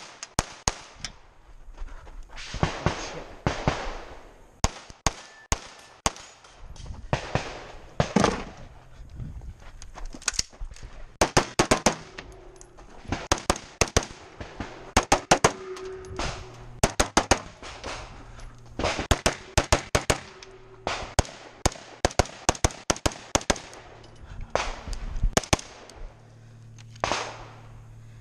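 Strings of rapid gunshots in quick pairs and bursts with short pauses between them: a Glock 19 pistol firing at the start, then an AR-15 rifle.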